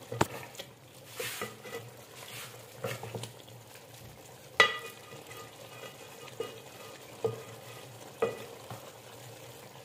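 A spatula stirring chopped fenugreek leaves frying in an aluminium pot as their water cooks off. The leaves sizzle and bubble steadily under scraping, and the spatula knocks sharply against the pot about five times, each knock ringing briefly, the loudest about halfway through.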